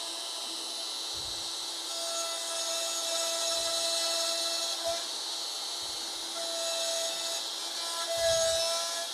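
DeWalt compact router running at speed, its bit cutting a slot through the wooden wall of a yarn bowl: a steady high whine and hiss, with a tone that comes and goes as the bit bites into the wood, and a few low thumps.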